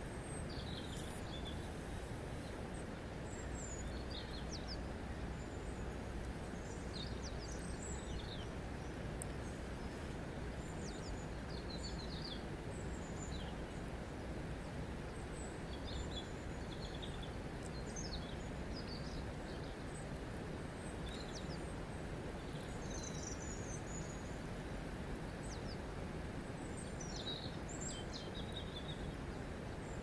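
River water flowing steadily over a cobble bed, an even, constant rush. Small birds chirp and sing in short, high calls on and off throughout.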